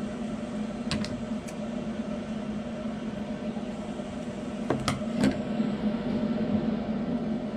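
A steady low hum with a few sharp clicks and taps of small parts being handled: a cluster about a second in and a louder cluster around five seconds in.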